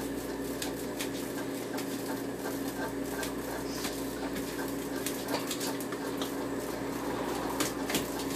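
Irregular clicks and taps on a hard kitchen floor as a dog scrambles after a cicada, over a steady low hum.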